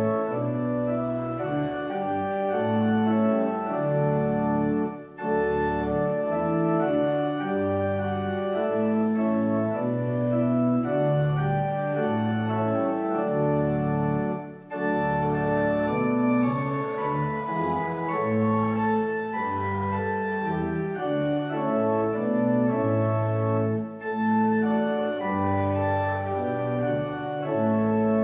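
Church organ played from a two-manual console: sustained chords moving step by step, with short breaks between phrases about 5, 14 and 24 seconds in.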